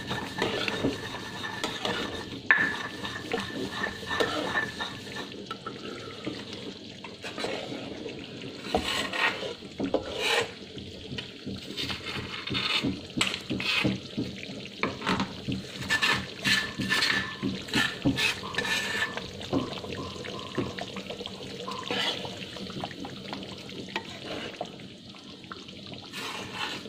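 A metal utensil stirring and scraping through the thick, simmering coconut-milk gravy of beef rendang in a metal pan, with irregular clinks and scrapes against the pan.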